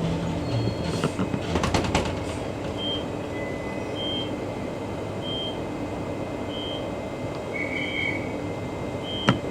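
Inside a Queensland Rail EMU electric train: the running train rumbles steadily, with a few clicks and rattles about two seconds in. From about three seconds in, a short high beep repeats roughly once a second.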